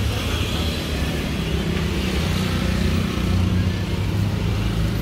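Street traffic: a motor vehicle engine running nearby with a steady low hum that swells a little past the middle.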